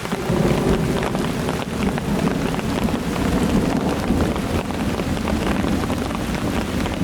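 Steady rain falling, with many small drop impacts, and a low rumble that sets in right at the start and carries on throughout.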